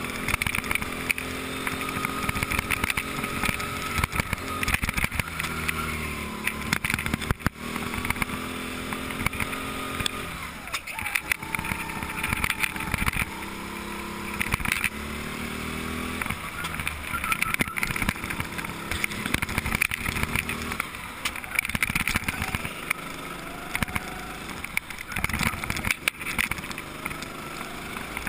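Go-kart engine running under the driver, its pitch rising and falling again and again as the kart accelerates and lifts off through the corners.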